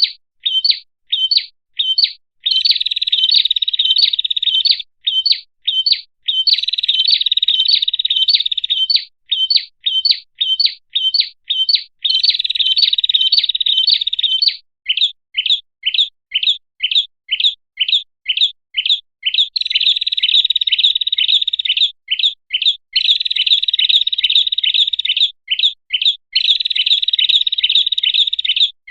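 Lure-call recording of a small red-headed prenjak singing. Its loud, high song alternates between runs of separate sharp chirps, about three or four a second, and rapid buzzing trills of two to three seconds each.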